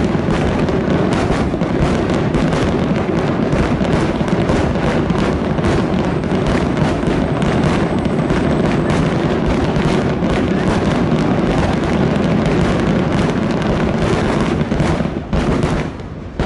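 Fireworks finale barrage: a dense, continuous stream of overlapping shell bursts and crackle, easing off near the end.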